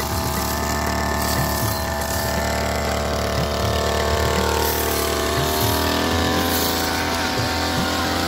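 Petrol brush cutter engine running steadily as its blade swings through grass, the pitch sagging a little in the second half.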